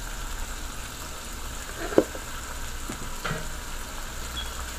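Beef and potato pieces sizzling steadily in hot oil while frying, with one sharp knock about two seconds in and two lighter knocks soon after.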